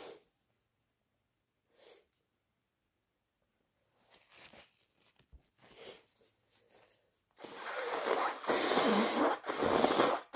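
Person with a bad head cold: a few faint sniffs and breaths, then, in the last three seconds, a run of loud, noisy blasts of air through a congested nose.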